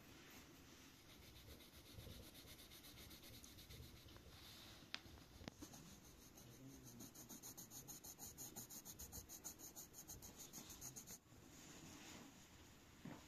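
Pencil shading on paper: quiet scratching, becoming a fast, even run of back-and-forth strokes for about five seconds in the middle.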